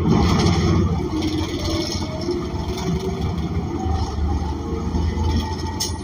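Bus's Cummins Westport ISL G natural-gas engine pulling under load, heard from inside the passenger cabin: a loud, steady low rumble with a faint whine that climbs in pitch as the bus gathers speed. A sharp knock sounds near the end.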